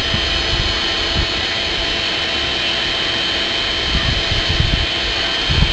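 Air blower feeding a small coal forge, running steadily with a rushing noise and a faint high whine while metal heats in the fire. A few low thumps come near the end.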